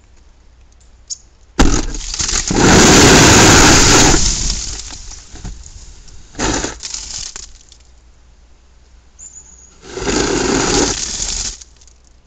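A large sheet of snow and ice sliding off a roof: a sudden loud crash about a second and a half in, turning into a couple of seconds of rushing, scraping noise that fades out. A shorter burst follows, then another loud rush of snow coming down near the end.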